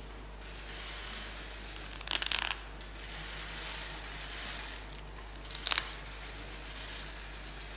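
Paper wrapping rustling as it is unfolded from a framed painting, in two short bursts, about two seconds in and again about five and a half seconds in, over a steady hiss.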